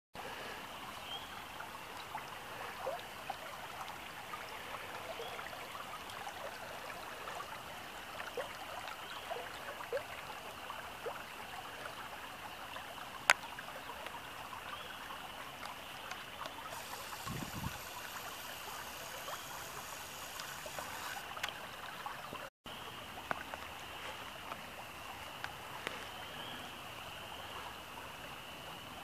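Rain-swollen woodland creek running steadily, with small splashes and trickles throughout. One sharp click about halfway through.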